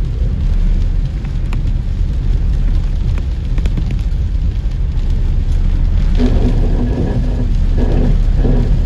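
Steady low rumble of a car's engine and tyres on a wet road, heard from inside the cabin. In the last three seconds a pitched sound comes and goes on top of it.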